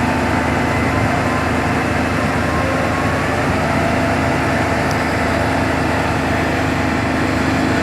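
A large engine running steadily at idle, with a constant, even hum.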